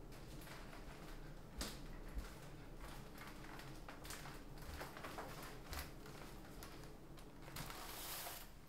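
Faint footsteps with soft taps and rustles from a tinsel-trimmed wicker gift basket as it is carried, then a brief rustle near the end as it is set down on a counter, over a low steady room hum.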